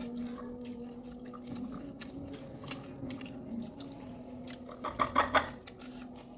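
Close-up chewing and wet mouth sounds of a person eating rice and fried food by hand, with small scattered clicks and a short flurry of louder smacking about five seconds in.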